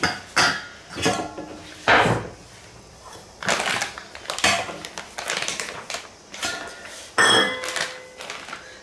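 Stainless steel kitchen bowls and utensils clinking and knocking irregularly against each other and the countertop. About seven seconds in, a louder clang rings on briefly as a steel bowl is set down. A plastic packet rustles as it is handled.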